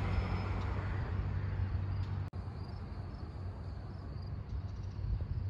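Outdoor background noise: a steady low rumble under a soft hiss, cutting out for an instant about two seconds in.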